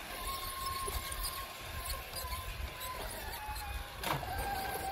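Axial SCX6 RC crawler's electric drivetrain whining steadily as the truck creeps over rock, the whine dropping in pitch a little after three seconds in as the throttle eases; the owner takes this drivetrain noise for a sign that the driveshafts need oiling. A single sharp knock just after four seconds in, as the truck strikes rock.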